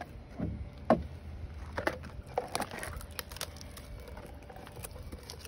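Plastic spreader scraping and tapping as white filler paste is spread over a wooden dinghy transom and scooped from a cut-open plastic jug: irregular short knocks and scrapes.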